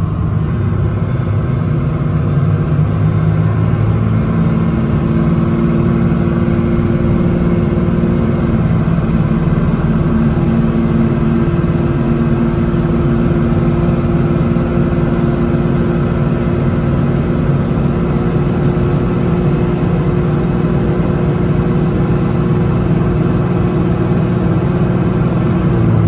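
Turbo-diesel pickup engine heard from inside the cab, pulling hard under load while towing a trailer up a steep grade from a near stop, at part throttle. The engine note climbs over the first few seconds and then holds steady, with a high turbo whistle that rises and then holds as boost builds to almost 30 psi.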